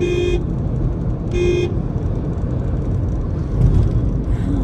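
Two short car-horn toots, one at the very start and one about a second and a half in, over the steady low rumble of tyres and engine heard from inside a moving Nissan Magnite on the highway.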